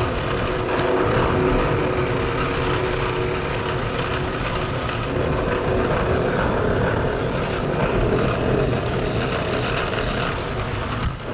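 Bridgeport vertical milling machine running steadily, its face-milling cutter taking a pass across the steel face of a power-hammer bottom die to clean out a defect: a constant spindle and cutting noise with a few steady tones.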